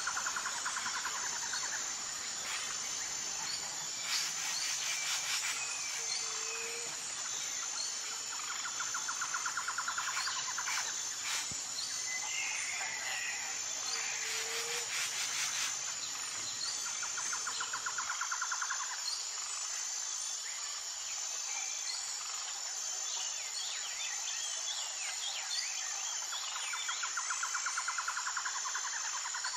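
Nature ambience of insects and birds: a steady high insect drone, a rapid pulsing trill that returns every eight to ten seconds, and scattered bird chirps.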